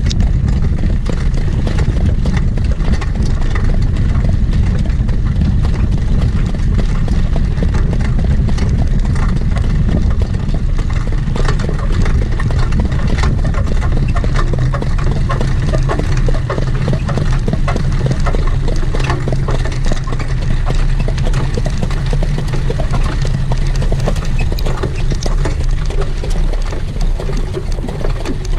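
Heavy wind rumble on the microphone over the quick, steady hoofbeats of a harness horse pulling a sulky at speed.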